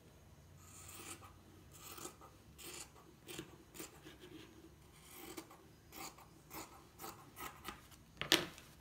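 Dressmaker's scissors cutting through layered fabric around a pinned paper pattern: a run of crisp, uneven snips, with one sharper click near the end.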